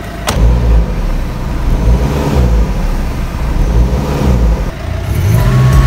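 Freshly rebuilt Renault Kangoo 1.5 dCi (K9K) turbodiesel engine pulling away under light throttle, its note rising and falling several times as the van is driven out. A sharp click comes just after the start.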